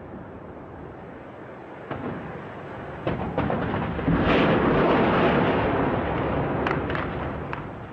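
A large explosion at a tank about four seconds in: a sudden blast followed by a rumble that fades over a couple of seconds. A few dull thuds come before it, and several sharp cracks of gunfire follow it.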